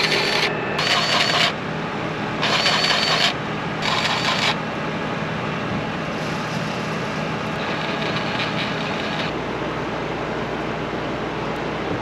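A grease gun run in four short bursts in the first few seconds, then once more for longer, as fittings are greased. A steady low engine hum runs underneath.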